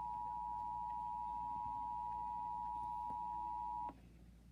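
Emergency Alert System attention signal: a steady two-tone alarm, the two pitches sounding together, that cuts off sharply about four seconds in. It is the tone alert that opens an emergency alert broadcast, here ahead of a national test message.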